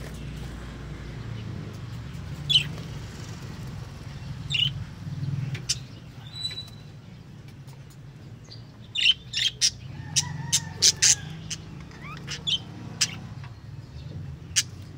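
Small caged parrots chirping: short, sharp, high chirps, scattered at first, then coming thick and fast about nine to eleven seconds in, with a few more near the end. A steady low hum runs underneath.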